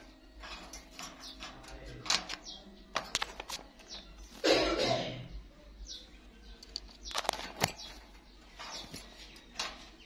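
Plum-headed parakeet giving short, high chirps at intervals, mixed with sharp clicks and taps, and one louder, rougher sound about halfway through.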